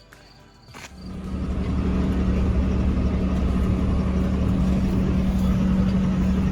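A vehicle engine running steadily with a constant low hum. It fades in about a second in, after a brief quiet start, and then holds level.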